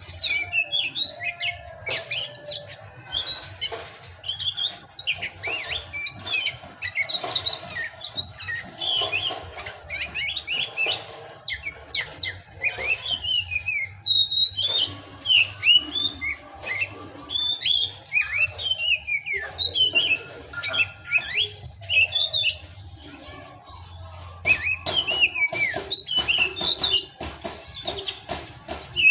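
Songbird singing a rapid, varied stream of chirps and high down-slurred whistles, almost without pause, easing briefly about twelve seconds in and again near twenty-three seconds.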